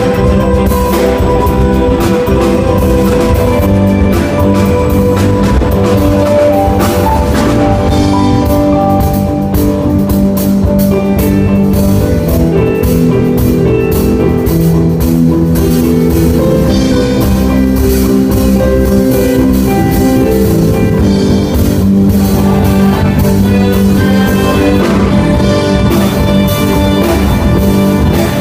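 A rock band of drum kit, guitar, bass and keyboard playing together at a sound check, loud and steady.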